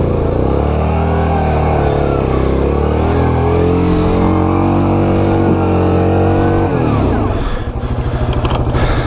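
Yamaha Grizzly 700 ATV's single-cylinder engine revved hard and held high in low range for about seven seconds as it tries to pull through deep mud with its tyres packed with mud. About seven seconds in it drops back to idle.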